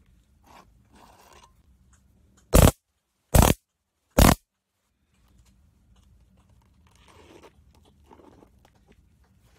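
Homemade taser sword, a 9-volt battery and boost converter driving sparks across the gap between its two blades, fired in three short, loud bursts about a second apart. Faint rustling of the tape-wrapped sheath and sword being handled comes before and after.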